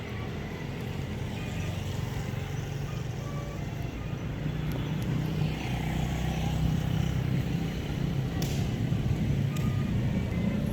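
Steady low rumble of motor traffic on a road, growing a little louder, with a brief sharp click about eight and a half seconds in.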